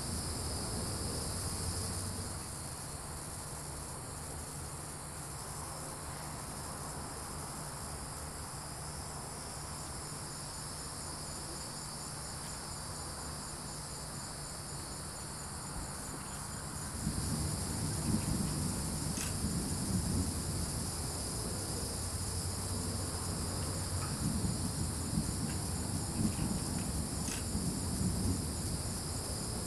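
Steady, high-pitched chorus of crickets and other evening insects. About halfway through, a low, uneven rumble comes in beneath it and carries on.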